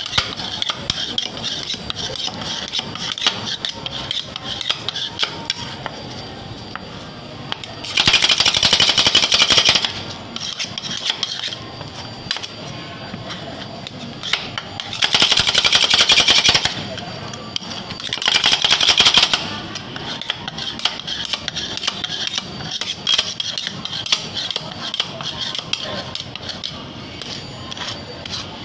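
Two metal spatulas tapping and scraping on a stainless steel rolled-ice-cream cold plate as vanilla ice cream is chopped and mixed with Oreo pieces. There are three bursts of fast, rapid chopping strokes, about eight, fifteen and eighteen seconds in.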